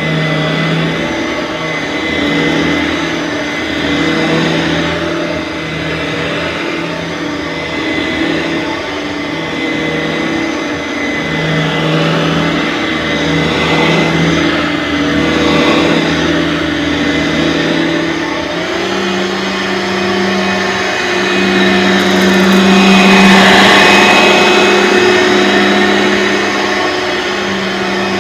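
Aeros upright vacuum cleaner (model U162C) motor running continuously with a steady hum. Its pitch wavers at first, then steps up and holds higher about two-thirds of the way through, with a louder rush of air a little later.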